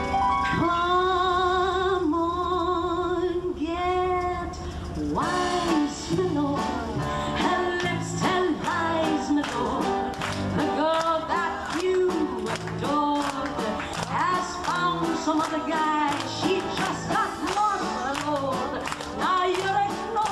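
A woman singing live into a microphone, backed by a small band. She holds long notes with vibrato for the first few seconds, then moves into quicker, shorter phrases from about five seconds in.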